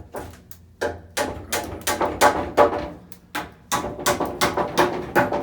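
A rapid, uneven series of knocks, about three a second, each with a short ringing tone.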